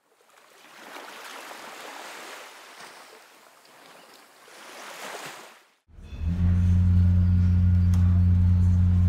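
Sea waves washing in, swelling and fading twice. About six seconds in, a ship's engines take over with a loud, steady low drone of two tones, heard from inside the vessel.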